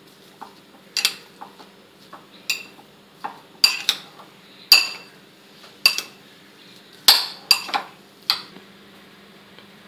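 Metal spoon clinking against a glass bowl while mixing mashed potato filling: about nine sharp clinks at irregular intervals, each with a brief ringing of the glass.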